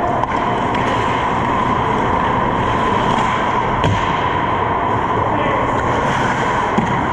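Ice hockey play heard from the goal crease: a steady rush of skates on ice and rink noise, with a sharp stick-on-puck clack about four seconds in and another near the end.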